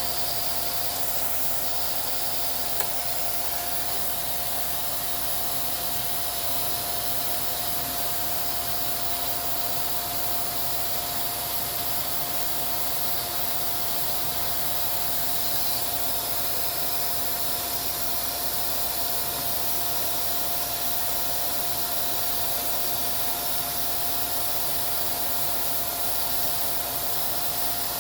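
Steady small-motor running noise: an even hiss with a constant mid-pitched whine, unchanging throughout.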